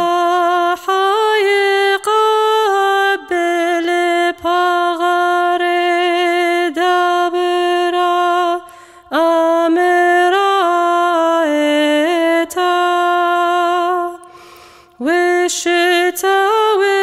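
One high voice singing an unaccompanied Syriac liturgical chant, the congregation's response before communion, in long held notes with small ornaments. It breaks off briefly for breath twice, about halfway through and again near the end.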